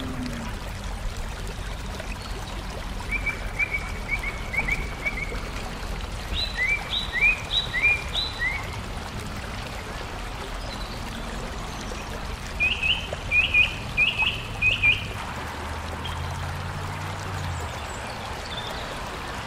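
A songbird singing three short bursts of quick repeated notes, a few seconds apart, over a steady background hiss. A low hum comes in briefly near the end.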